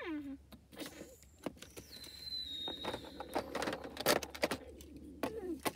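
Plastic LEGO pieces clicking and clattering as minifigures and parts are handled on a baseplate. A child's voice makes wordless sound effects: a falling swoop at the start and another near the end, with a brief high steady tone about two seconds in.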